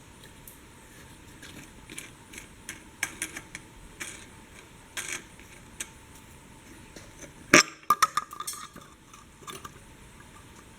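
Small hard parts clicking and clinking as the air compressor's intake filters and their housings are handled, with one sharp clack about seven and a half seconds in followed by a brief rattle.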